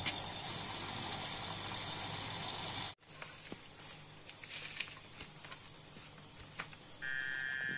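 A night insect chorus, crickets among them, trilling steadily in high, even tones. It breaks off for an instant about three seconds in. A second, lower steady trill joins near the end, with a few faint taps along the way.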